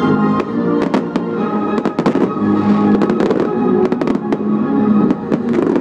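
Aerial fireworks bursting and crackling in quick, irregular bangs over music.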